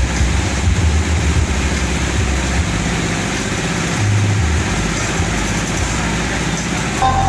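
Loud, distorted bass from a parade sound system, with deep bass notes that hold and then shift every second or so under a noisy wash.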